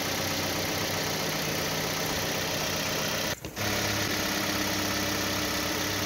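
Engine idling steadily, cutting out for a moment about three and a half seconds in and then running on a little louder.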